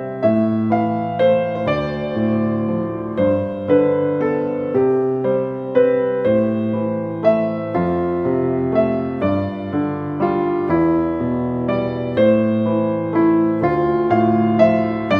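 Background music: a gentle piano piece, notes and chords struck at an unhurried pace and left to ring.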